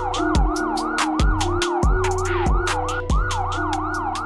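Electronic siren wailing in quick rising sweeps, about three a second, over synthesized music with a bass line and a clicking beat.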